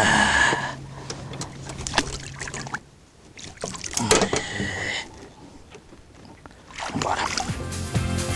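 Water splashing as a golden dorado is released over the side of a boat: a splash right at the start and another about four seconds in, with a low steady hum under the first few seconds. Music comes in near the end.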